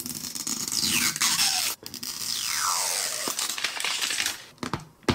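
Clear plastic shrink wrap being torn and peeled off a plastic capsule ball, crinkling and ripping in two long stretches with a short break about two seconds in, then a few sharp clicks near the end.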